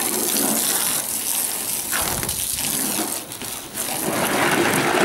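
Water spraying hard from a hose lance onto a car's bodywork, a steady hiss that breaks off briefly a little past the middle and then starts again.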